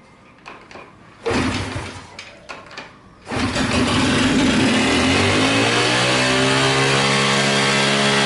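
Honda SS50's small single-cylinder four-stroke engine being started: a couple of knocks and a short failed attempt, then it catches about three seconds in and runs loudly, its revs climbing by themselves and holding high. The high idle comes from a part that had come off, which the owner later finds.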